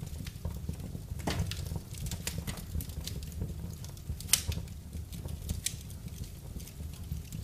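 Wood fire burning in a fireplace, crackling with irregular small pops over a low steady rumble; one sharper, louder pop a little after halfway.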